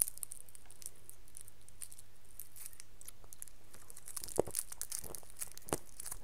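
Crinkling and tearing of a sweet wrapper being picked open by fingers, with a few sharper crackles in the second half.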